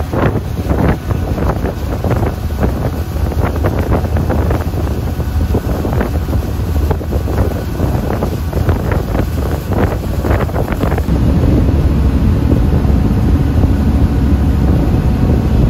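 Ferry engine running with a steady low hum, with wind buffeting the microphone in irregular gusts. About eleven seconds in the gusts die away and the engine hum comes through steadier.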